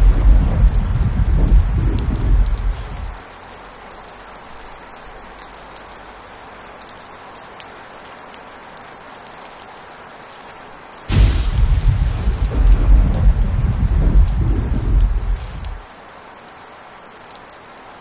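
Heavy rain falling steadily, with thunder: a rumble that dies away about three seconds in, then a sudden clap about eleven seconds in that rumbles on for some five seconds before stopping.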